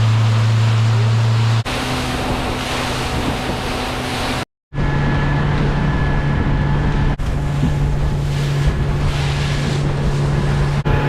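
Boat motor running steadily under way, a low drone under loud wind on the microphone and water noise. Several abrupt cuts break it up, with a brief dropout to silence about halfway.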